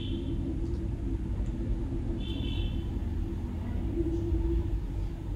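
Steady low rumble with a constant hum, with a short high beep about two and a half seconds in and another near the end.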